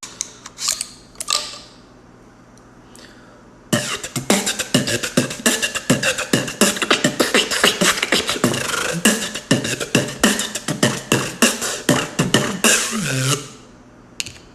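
Beatboxing: a few mouth sounds, a short pause, then a fast, dense run of clicks and percussive hits for about ten seconds.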